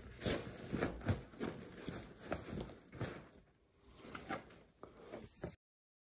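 Handling noise of a fabric travel bag being packed: a run of short rustles and knocks. It cuts off abruptly about five and a half seconds in.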